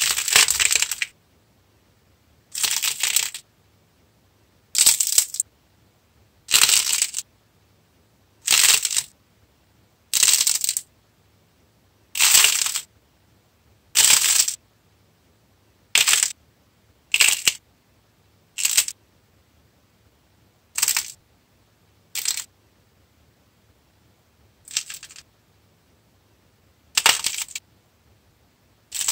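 Hardened clay surface of a sculpted face crackling as fingers press and squeeze it, in about fifteen short crisp bursts of cracking with brief pauses between squeezes.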